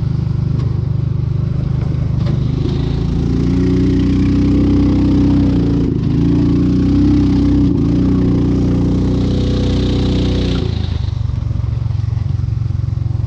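440cc DuroMax single-cylinder gas engine in a converted EZGO golf cart running while the cart is driven. The engine revs up about two and a half seconds in, holds the higher speed with a brief dip, and drops back near the end.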